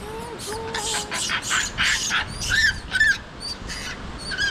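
Japanese macaques calling: a drawn-out pitched coo in the first second or so, over a quick run of short, noisy calls that stops about three seconds in.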